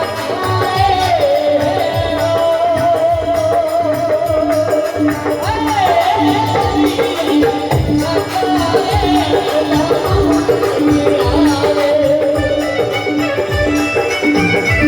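Marwari folk music: a wavering, ornamented melody line over a steady hand-drum rhythm with jingling percussion.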